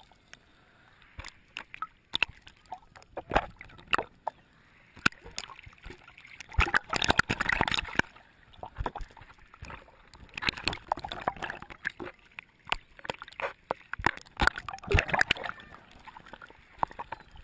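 Water sloshing and gurgling around a camera that dips in and out of the surface, with rushing splashes a few times and many sharp little taps and clicks.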